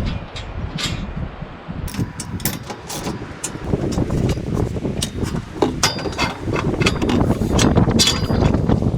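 Wind buffeting the microphone, with repeated metal clinks and knocks of steel truck-rack parts and bolts being handled and fitted, a couple of them ringing briefly.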